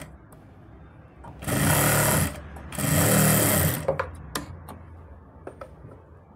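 Sewing machine running in two short runs of about a second each, stitching along the edge of the lining to tack it to the kameez fabric, followed by a few clicks.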